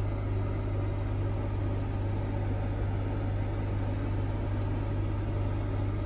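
Steady hum of a Heron 2.2 air conditioner and a microwave oven running together, a constant low drone with even fan noise over it.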